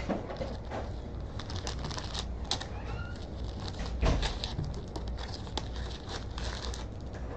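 Trading card packs and cards being handled: foil wrappers rustling and crinkling, with a string of short clicks and a faint short squeak about three seconds in.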